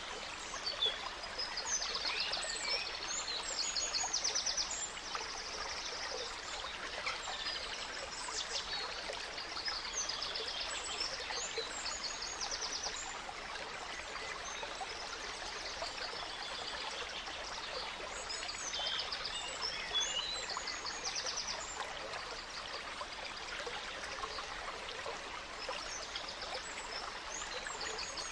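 Gentle stream trickling steadily, with forest songbirds singing over it in bouts of chirps and rapid trills, busiest in the first half and again about two-thirds of the way through.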